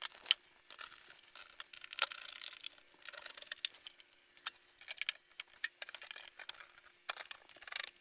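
Sheet-metal access door being fitted back onto a gas furnace cabinet and screwed down: irregular clicks, scrapes and light metal knocks.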